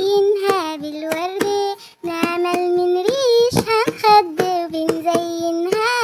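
A child's voice singing a melody over a children's song backing track with a steady beat. The music cuts out very briefly about two seconds in.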